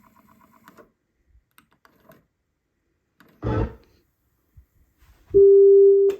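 Faint clicks from a Nakamichi Dragon cassette deck's mechanism and a short thump, then a steady 400 Hz calibration test tone starts near the end and is the loudest sound.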